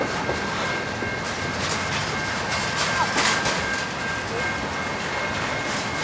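Double-stack intermodal freight cars rolling past, their steel wheels clicking over rail joints over a steady rumble, with a faint steady high whine. A louder clatter comes about three seconds in.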